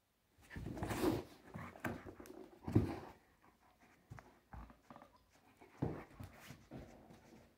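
A large husky-type dog at play, making short vocal sounds in irregular bursts, the loudest about a second in and just before three seconds.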